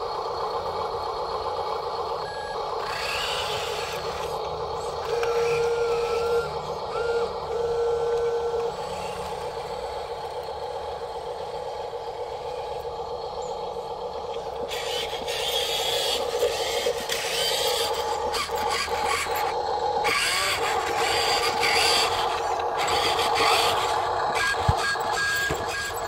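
Radio-controlled model dump truck running, its steady motor hum mixed with engine noise from a sound module. About five seconds in there are three beeps, like a reversing alarm. Later come gritty scraping and rolling noises from the wheels on concrete and board.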